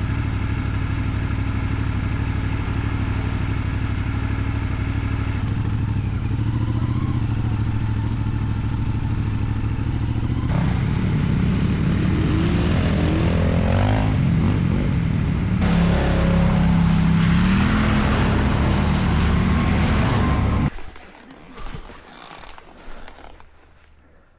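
Kawasaki KLX300 dual-sport motorcycle's single-cylinder engine running under way: steady at first, then revving up and down in pitch from about ten seconds in. It cuts off suddenly near the end, leaving only faint rustles and knocks.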